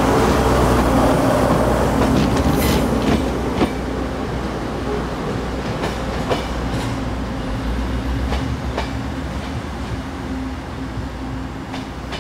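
Taiwan Railway DRC1000-series diesel multiple unit pulling out of a station: a steady diesel drone with scattered wheel clicks over the rail joints, slowly fading as the train moves away.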